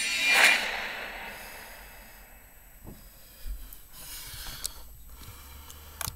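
A loud, short snorting exhale through the nose about half a second in, then a few faint clicks and knocks as hands work the recording device.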